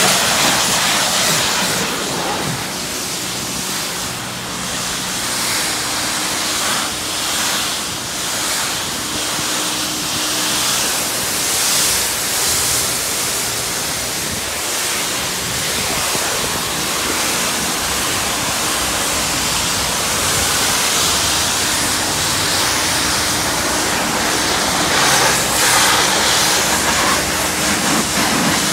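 High-pressure car-wash wand spraying onto a car's body: a steady hiss of spray hitting the paint, with a faint steady hum underneath.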